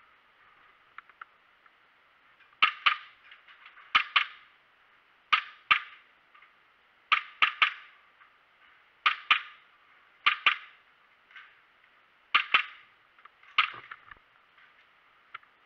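Airsoft replica firing in pairs of sharp shots, about eight pairs at intervals of a second and a half, with lighter ticks in between.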